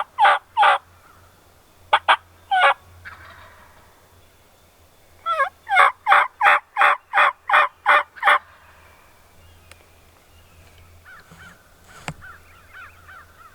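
Wild turkey yelping in runs of short, evenly spaced notes: a few at the start, two around 2 s, then a loud run of about nine notes from about 5.5 to 8.5 s. Fainter, softer turkey calls follow near the end.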